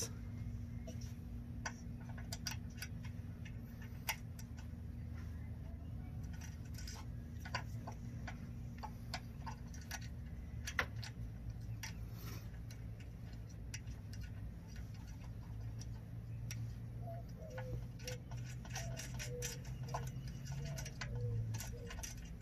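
Scattered light clicks and taps as a puddle light is handled and fitted onto its mounting bracket, over a steady low hum.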